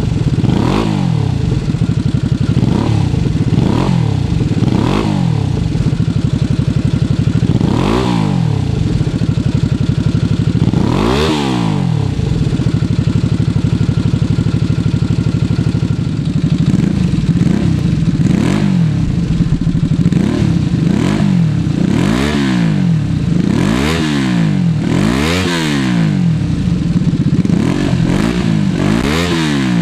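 1988 Honda VTZ250's V-twin engine running through an aftermarket slip-on muffler, blipped repeatedly from idle in short revs. There are two higher revs about a third of the way in, a few seconds of steady idle in the middle, then a run of quick blips.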